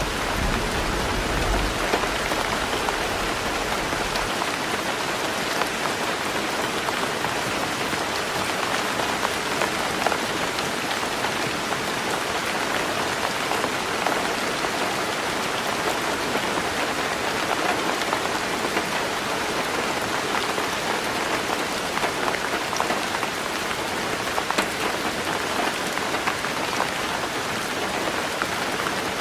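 Heavy rain falling steadily on a roof, a dense even hiss with small scattered drop ticks. A low rumble of thunder dies away in the first few seconds.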